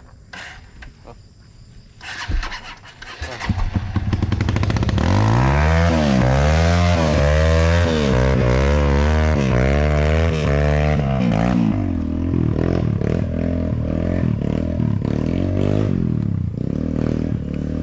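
Trail motorcycle engine, fairly quiet for the first two seconds, then revved hard again and again, its pitch rising and falling about once or twice a second. In the last few seconds it runs in shorter, uneven throttle blips.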